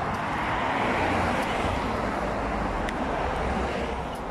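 Steady road traffic noise from passing vehicles, heard from a moving bicycle on a city street.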